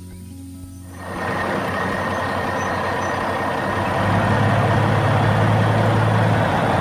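Cartoon sound effect of a heavy truck's engine running: a steady noisy rumble starts about a second in and grows louder with a deep hum about four seconds in.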